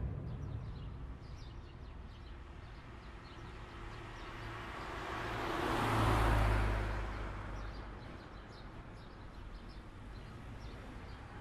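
Outdoor traffic ambience: one vehicle passes, swelling and fading away about six seconds in, with faint bird chirps.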